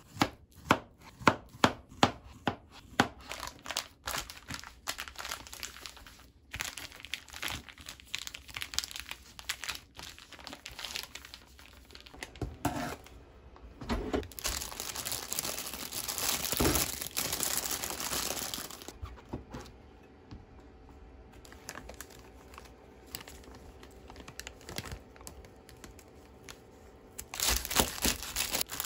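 A ceramic kitchen knife slicing a banana on a plastic cutting board, a quick run of sharp taps over the first three seconds. Then a plastic zip-top freezer bag crinkles as it is handled. Near the end a knife saws through the plastic-wrapped root end of a bunch of enoki mushrooms with a loud crinkling crunch.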